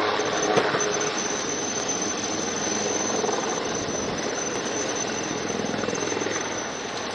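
HAL Prachand light combat helicopter hovering low: steady rotor chop with a constant high turbine whine.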